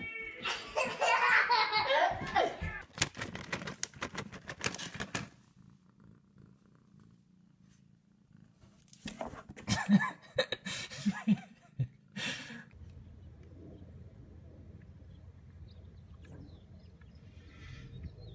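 A toddler laughing and squealing excitedly for several seconds. After a pause come a few short, louder sounds, then a steady low background hum with faint chirps.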